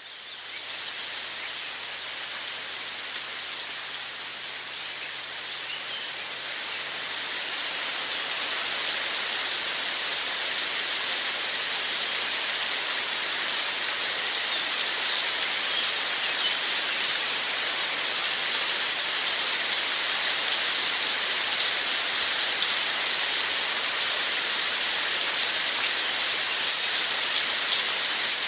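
Steady rain falling, an even hiss strongest in the high range. It fades in at the start and grows louder over the first several seconds, then holds level, with a faint low hum underneath.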